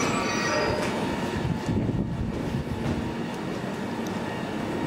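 A train running through the station: a steady low rumble with a faint, thin whine above it.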